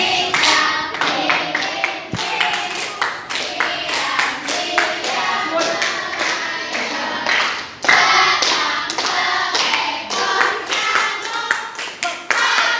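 A group of voices singing together while hands clap along, with frequent sharp claps and some chatter mixed in.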